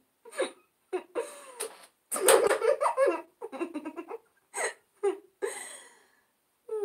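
A string of short recorded laughs and giggles from a sound-effects library, one after another with brief silences between. The longest and loudest laugh comes about two seconds in.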